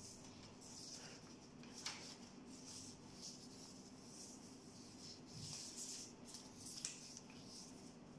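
Faint rustling and rubbing of a sheet of origami paper being folded and creased by hand on a tabletop, with two short sharp ticks, one about two seconds in and one near the end.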